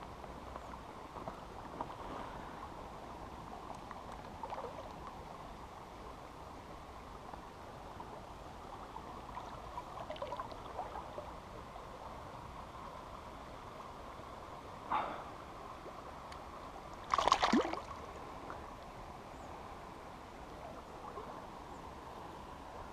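Shallow river water moving and lapping, with light splashing as a hand works a small fish and lure in the water. Two short louder sounds stand out, about 15 and 17 seconds in, the second the louder.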